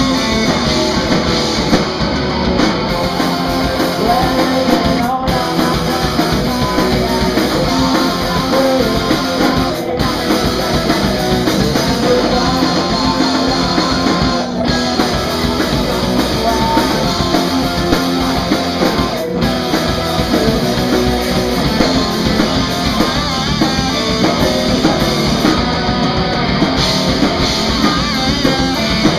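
Rock band playing live at full volume: electric guitar through an amplifier, a drum kit and a singer's vocals.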